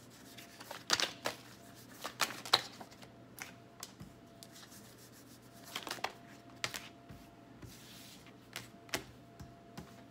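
Tarot cards being shuffled in the hands and dealt onto a table: a series of sharp, irregularly spaced card snaps and slaps.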